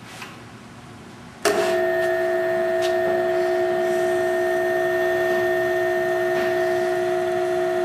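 Grizzly G0521 self-reversing drill press switching on suddenly about a second and a half in, then running with a steady whine as its three-spindle head drives three 10-32 taps into the part.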